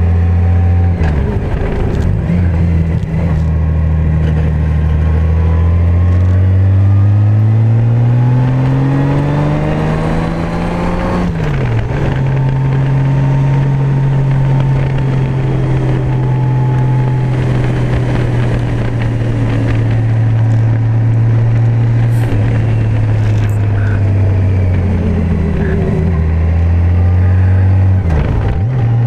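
Honda Gold Wing touring motorcycle's engine heard from the rider's seat, pulling up through the revs for about ten seconds, dropping in pitch with an upshift, then running steady at cruising speed. Near the end the revs dip briefly and climb again.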